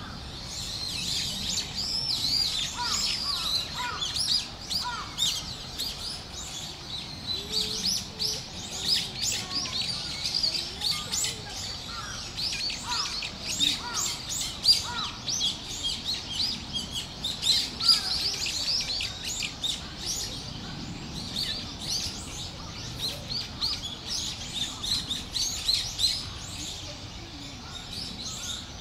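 Small birds chirping continuously in a busy chorus of short, high, overlapping notes, with a few lower notes scattered among them.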